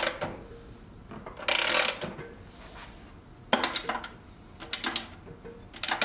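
Ratchet wrench being worked in short strokes, about five bursts of rapid clicking and rasping spaced a second or two apart, as bolts are run in on a moped.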